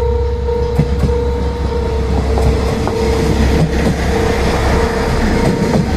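Diesel railcar rolling into the station close past the listener, its rumble filling the sound, with sharp wheel clicks over rail joints in the second half. A level-crossing bell rings on throughout with a steady repeated tone.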